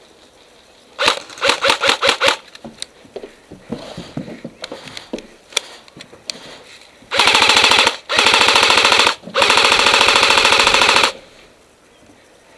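Airsoft gun fire: a quick string of about six shots, then scattered single shots. Near the end come three long full-auto bursts, each one to two seconds long, with short breaks between them.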